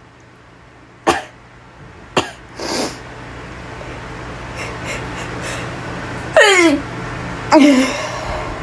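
A woman sneezing in a fit: a few short, sharp sneezes, then two loud voiced sneezes near the end, each sliding down in pitch. She puts the fit down to pollen.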